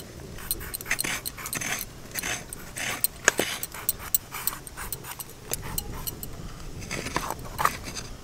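Rough scraping strokes of a curved iron blade peeling the skin off pointed gourds (potol), coming in short uneven strokes with an occasional sharp click.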